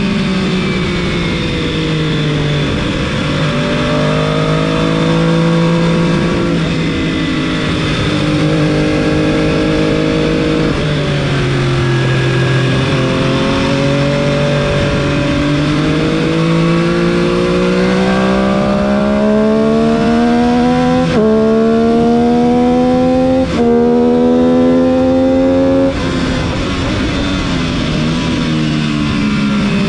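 MV Agusta F3 675 inline three-cylinder engine at racing speed: the revs fall in steps as the bike slows into a corner, then climb hard on the throttle, with two quick upshifts about two-thirds of the way in, before the throttle shuts off near the end. Wind rush runs under the engine note.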